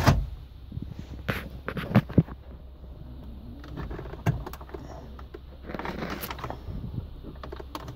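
Hands handling a car stereo and the plastic dashboard around it: scattered knocks and clicks, with a stretch of rubbing about six seconds in, over a low steady hum.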